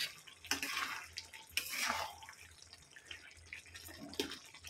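Spatula stirring a thick, wet minced-meat curry in a kadai over high heat: a few irregular wet, slopping strokes against the pan.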